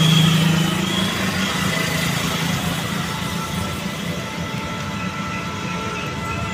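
Steady road noise heard from a moving vehicle: engine hum and passing traffic, with the low hum loudest in the first second.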